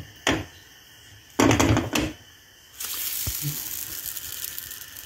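Pancake turned over with a spatula in a nonstick frying pan: a short scraping clatter as it is flipped, then the raw batter side sizzling steadily against the hot pan.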